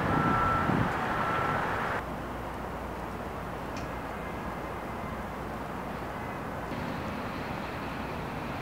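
Street ambience: a vehicle passes under an electronic beep that repeats about once a second. Both cut off sharply about two seconds in, leaving a steady outdoor hiss.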